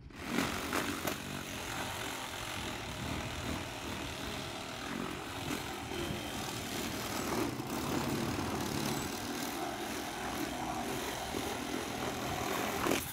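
Steady outdoor engine drone with a rushing noise, which cuts in and cuts off abruptly.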